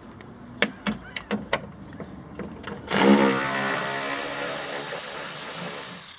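A few light clicks and knocks, then about three seconds in a power drill starts up and runs with a steady whir, undoing the spoiler's fasteners, and stops abruptly near the end.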